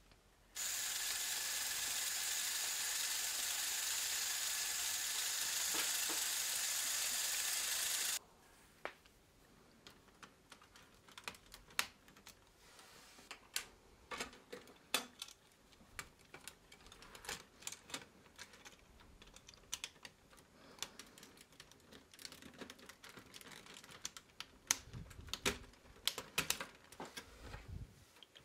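Lego Technic electric motor and gear train running with a steady whir for about seven and a half seconds, then stopping abruptly. After that, Technic beams and pins are handled and snapped together by hand, with many small sharp plastic clicks.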